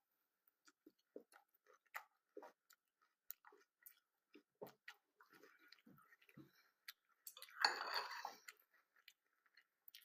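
Quiet chewing and crunching of cornflakes, a run of short crisp crunches, with one longer, louder crunch about three-quarters of the way through.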